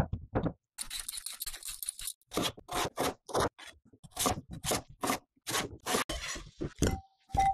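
Kitchen knife cutting raw potatoes into chunks on a wooden chopping board, a run of crisp cuts about two a second. Near the end, two short ringing clinks come as the chunks go into a glass bowl.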